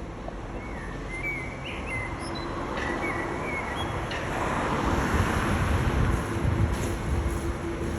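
A nightingale sings short whistled phrases in the first half, over city traffic noise with a steady low hum. Midway the traffic noise swells, as of a vehicle passing, and drowns out the song.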